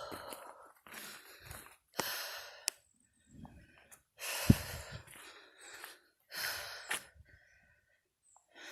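A person breathing hard close to the microphone after a climb: several separate breaths with short pauses between them, and a sharp click about halfway through.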